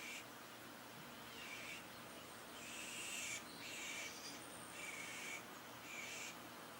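A bird calling repeatedly, short harsh high calls about once a second.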